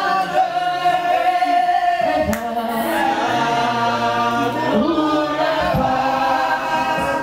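Voices singing a slow gospel worship song together in long held notes.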